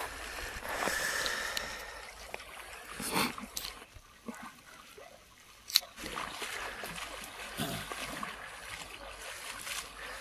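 Lake water splashing and lapping around a person wading chest-deep. There is a louder splash about three seconds in and a single sharp click a little before halfway.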